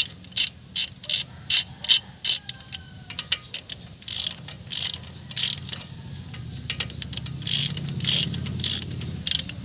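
Ratchet wrench clicking in an even rhythm, about three clicks a second, as it is swung back and forth on a bolt. The clicking pauses briefly about six seconds in, then resumes over a low steady hum.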